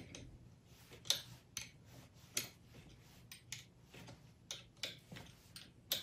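Faint, irregular light metal clicks, about one or two a second, from a box-end wrench working the steel nylock nuts on a U-bolt.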